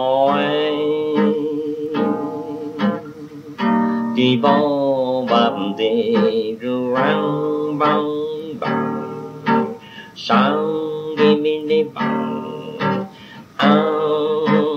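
Acoustic guitar accompanying a man's singing voice in a jazz tune. It is a lo-fi home recording made on an old Bakelite tape recorder, dull and muffled with no treble.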